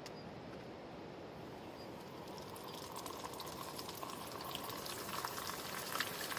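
Breaded squid kushiage deep-frying in hot oil: a steady bubbling hiss, with crackling pops that build up about a third of the way in.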